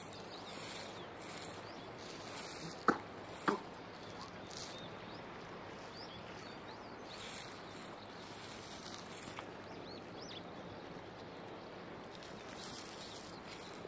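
Steady outdoor background noise with faint, high, short chirps scattered through it. There are two short sharp knocks about three seconds in, half a second apart.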